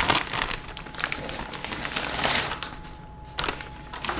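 A thin grey plastic packaging bag is pulled open by hand with a pull tab, giving a loud crinkling and rustling for about two and a half seconds. Then it goes quieter, with a couple of light knocks near the end.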